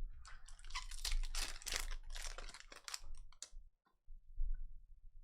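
Trading cards being flipped and slid against one another by hand: a quick run of papery flicks and scrapes for about three and a half seconds, then a short pause and a few lighter flicks.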